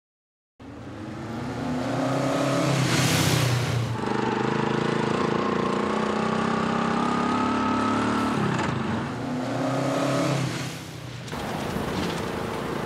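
Motorcycle engine running and accelerating, its pitch climbing slowly, then dropping at a gear change about eight and a half seconds in and climbing again. It starts half a second in and falls away about eleven seconds in.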